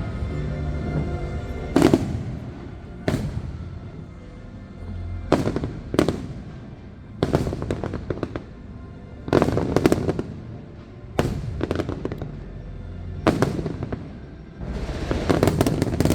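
A fireworks finale: loud bangs every second or two over a music soundtrack. Near the end they give way to a dense, rapid barrage of bangs and crackling.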